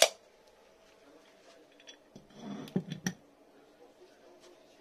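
Wood and metal being handled on a wooden workbench: a sharp knock at the start, then a short cluster of dull thuds and two or three sharp clicks about two to three seconds in.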